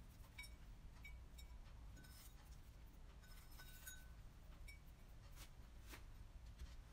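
Near silence: room tone with faint, scattered small clicks and clinks.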